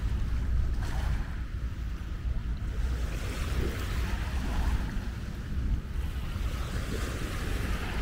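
Wind buffeting the microphone in uneven gusts, over a steady wash of small waves breaking on the beach.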